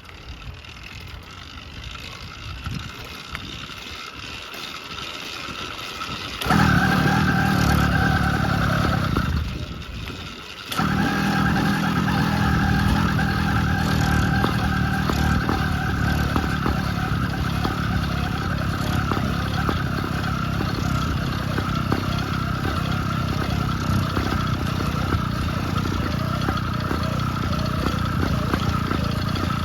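Phantom 85 two-stroke bicycle engine being started on a new build: a rising rattle for about six seconds, then the engine catches and runs loudly, cuts out briefly around ten seconds in, catches again and keeps running steadily.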